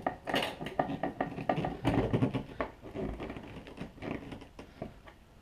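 Small parts being handled and fitted by hand: an irregular run of light clicks and knocks that thins out near the end.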